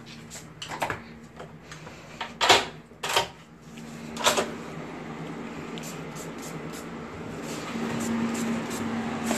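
A few sharp clicks and knocks as a hotel room door's lever handle and latch are worked and the door is pulled open. After that comes a steady low hum, which gets louder near the end.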